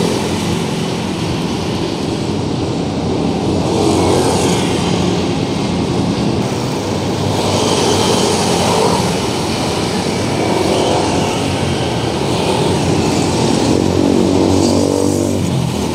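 Busy city road traffic: motorcycles and cars passing close by, a steady engine and tyre noise that swells several times as vehicles go past.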